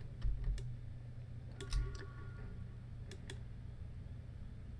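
Several faint computer mouse clicks, some in quick pairs, over a steady low hum.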